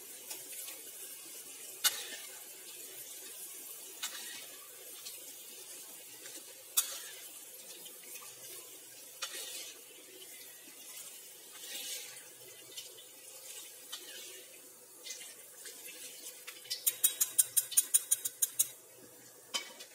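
A wire spider strainer and a metal spatula scraping and clinking against a steel wok as fried peanuts and chillies are scooped out of hot oil, over a faint, steady sizzle. Near the end comes a quick run of about a dozen sharp metal taps as the loaded strainer is knocked to drain off the oil.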